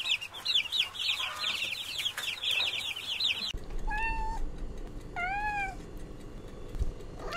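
A crowd of young chicks peeping rapidly and continuously, each peep a short falling chirp. The peeping stops abruptly about three and a half seconds in. Kittens then meow: two high meows, with a third starting near the end.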